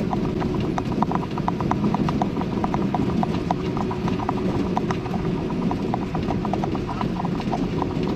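Steady low rumble of a vehicle on the highway, heard from inside the cab, with rapid, irregular clicking over it, several clicks a second.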